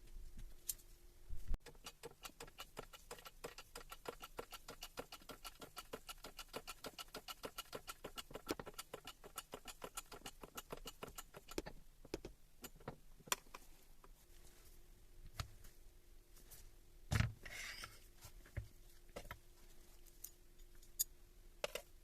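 Fast, even clicking, several clicks a second, for about ten seconds from workshop hand-tool work on the breaker. Then scattered taps and one louder knock, like parts being handled on a bench.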